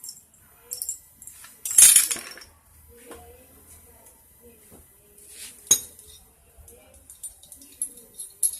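Small metal parts and hand tools clinking and clattering on a workbench during a motorcycle engine teardown: scattered light clinks and clicks, with one louder rattling clatter about two seconds in and a sharp click near six seconds.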